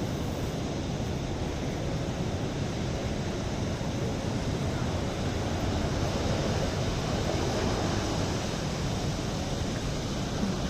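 Atlantic surf breaking and washing against rocks: a steady rush of water that swells a little about halfway through, with wind on the microphone.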